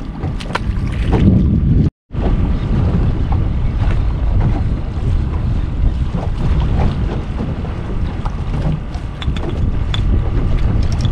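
Strong wind buffeting the microphone on an open boat, a loud, steady low rumble with a few faint clicks over it; the sound cuts out for a moment about two seconds in.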